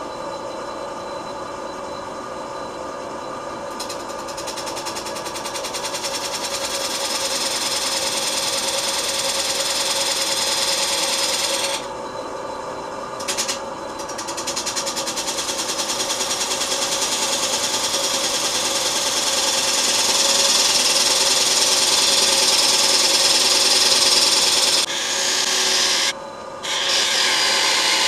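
Midi wood lathe running with a narrow parting tool cutting into a spinning black walnut bowl: a steady scraping, cutting noise over the lathe's motor hum. The cutting noise stops briefly about twelve seconds in and again near the end as the tool comes off the wood.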